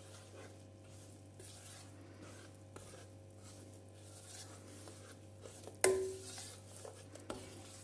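Spatula faintly stirring and scraping ground roasted chickpeas frying in ghee in a nonstick kadhai, over a steady low hum. About six seconds in, a single sharp knock against the pan rings briefly and dies away.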